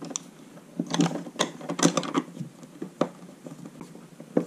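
Irregular small clicks, taps and scrapes from a screwdriver and fingers working camera cable wires in behind a wall plate with a rubber grommet. They come in clusters about one and two seconds in, with single sharp ticks later.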